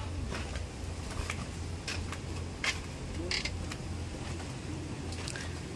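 Footsteps with scattered creaks and clicks over a steady low hum.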